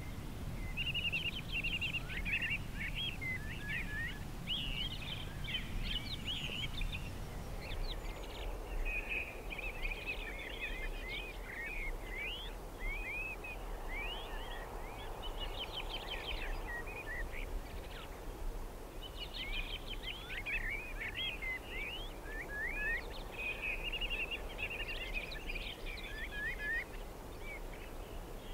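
Songbirds chirping and warbling in repeated short bursts, over a faint steady background noise.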